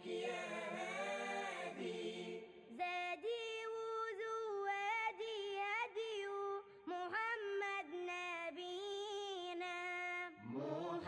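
Background vocal music: a single voice singing a slow melody without instruments, holding long notes and sliding between them.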